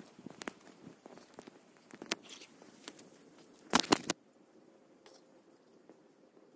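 Scattered crackles and knocks of a person moving about in dry leaf litter, with a louder cluster of knocks about four seconds in, then only a faint hiss.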